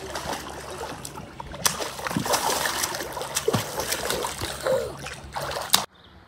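Pool water splashing and sloshing as a child swims, with repeated sharp splashes from his strokes. It cuts off abruptly near the end.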